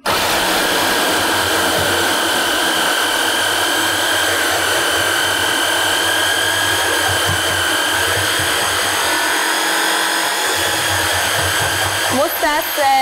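Electric stick blender with a chopper attachment switched on abruptly and running steadily at one speed, a constant motor whine as it chops soaked almonds. A voice joins near the end.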